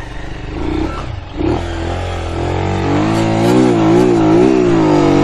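Motorcycle engine revved hard: the pitch climbs, wavers up and down at high revs, then drops away at the end, as on a stunt bike trying to pop a wheelie.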